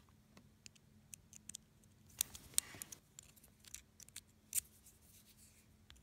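Faint handling of plastic cable connectors: scattered small clicks and short rubs as a USB-A plug and a barrel-to-USB-A adapter are handled and fitted together.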